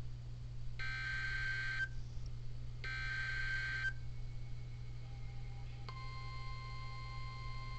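EAS/SAME digital header bursts on NOAA Weather Radio: two raspy one-second data bursts about two seconds apart. At about six seconds the steady 1050 Hz weather-radio warning alert tone starts, announcing the next warning. A steady low hum runs underneath.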